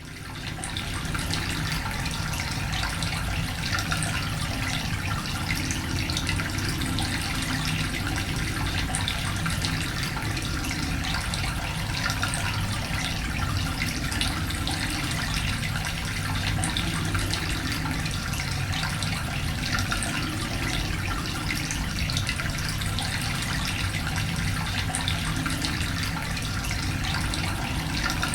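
Water running in a steady, continuous flow, with faint splashing specks in the stream.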